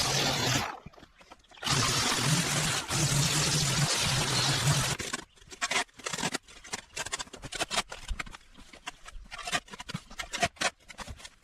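Pressure washer spraying with its pump motor humming, in two stretches: the first stops within the first second and the second runs from about two to five seconds in. After that, irregular crackles and clicks.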